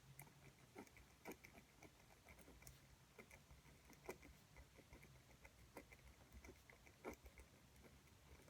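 Near silence with faint, irregular light clicks and taps, several a second, over a low hum.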